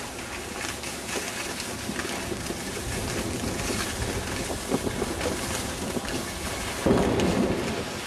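Skis sliding over packed snow with wind rushing over the microphone, a steady rough noise with a louder burst about seven seconds in.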